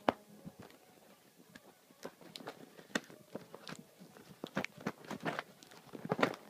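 Handling noise: irregular clicks, taps and short rustles of things being moved close to the microphone, with one sharp knock right at the start and a busier run of them near the end.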